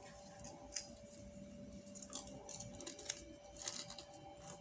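Faint crackling and a few small clicks of electrical tape being pulled off the roll and wrapped around a spliced wire joint, over a faint steady hum.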